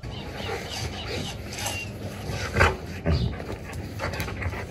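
Short sounds from a dog at play, the two loudest about two and a half and three seconds in.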